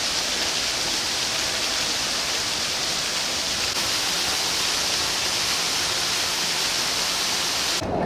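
Steady, even hiss of falling water, unbroken, cutting off suddenly near the end.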